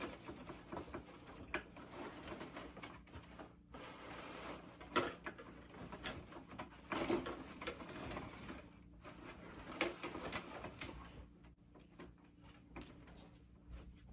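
Irregular rustling and scattered knocks and clicks of hands working a fabric Santa suit onto an animatronic figure's frame.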